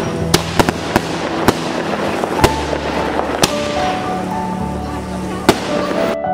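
Aerial fireworks bursting overhead: a series of sharp bangs, roughly one a second, the loudest about two and a half seconds in, over a continuous crackle of falling stars, with music playing underneath. The fireworks sound cuts off abruptly shortly before the end, leaving only the music.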